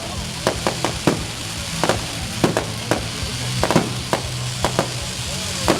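Fireworks going off: a rapid, irregular string of sharp pops and cracks, three or four a second, over a steady hiss.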